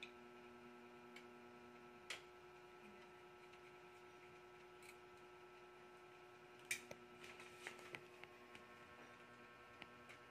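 Faint clicks and taps of a screwdriver and small metal and plastic parts as a copier's fuser unit is taken apart, with one sharper click about two seconds in and a run of clicks around seven to eight seconds in, over a steady low hum.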